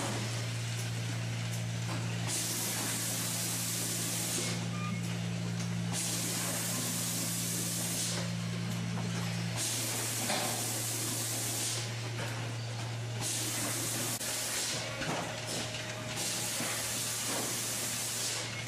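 Vacuum milking machine in a goat milking parlour: a steady low hum from the vacuum system, with a loud hiss of air being sucked in every three to four seconds. Each hiss lasts about two seconds, as teat cups are put on the goats' teats. One strand of the hum drops out about halfway through.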